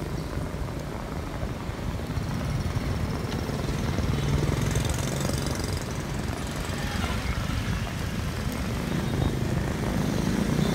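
Steady low rumble of street traffic, mostly motorbikes, filling the background.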